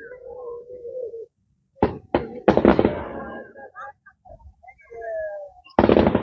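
Fireworks going off: three sharp bangs about two seconds in and another loud one near the end, with crackling after the first bangs. Long held calls are heard at the start and between the bangs.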